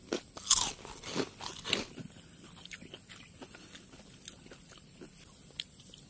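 Crunchy bites into fried skin (balat) from a skewer: three loud crunches in the first two seconds, then quieter chewing that fades.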